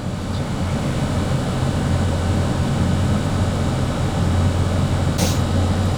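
Car engine idling steadily with the air conditioning blowing: an even low hum. A brief rustle about five seconds in.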